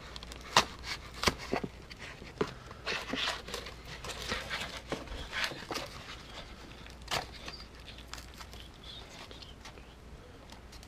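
A knife blade cutting and scraping through a thick cardboard firework tube, with the paper layers being torn and peeled apart: irregular scrapes and cracks, busiest in the first seven seconds, then sparser.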